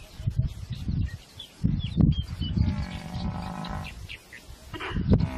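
Spotted hyenas feeding on a live Cape buffalo: a run of low, rough animal noises, one drawn-out low call with overtones a little past halfway, and a few faint high bird chirps.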